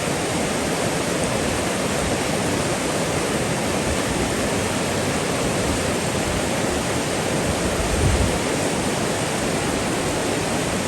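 Rushing water of a muddy river in flood, a steady even noise of fast-flowing water, with a brief low bump about eight seconds in.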